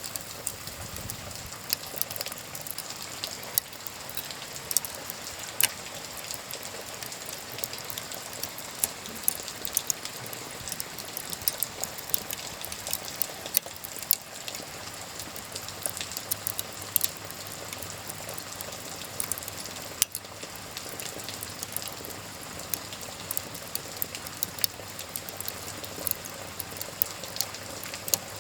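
Wood fire crackling with frequent sharp, irregular pops over a steady hiss of rain.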